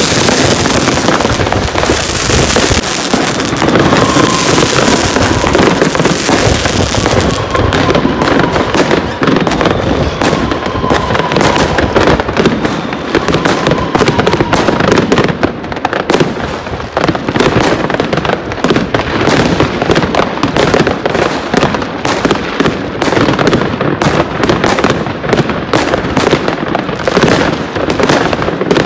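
Many fireworks and firecrackers going off at once: a dense, unbroken stream of bangs and crackles.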